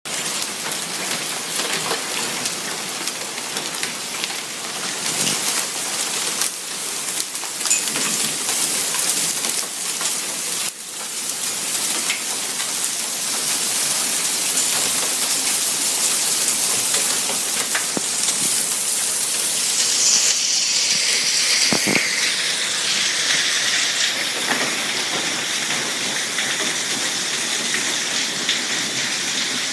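Hailstorm: hail and rain pelting down hard, a dense steady hiss studded with many sharp clicks of hailstones striking.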